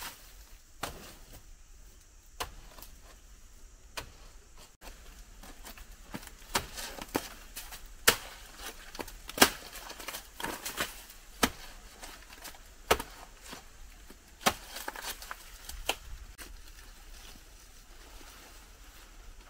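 A blade chopping by hand: a run of irregular sharp knocks and cuts, the loudest about eight and nine and a half seconds in.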